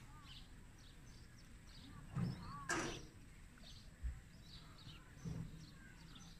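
Small birds chirping on and off in the background. A man sipping a cold drink from a glass mug, with a couple of louder mouth and breath sounds near the middle and a soft knock a little after.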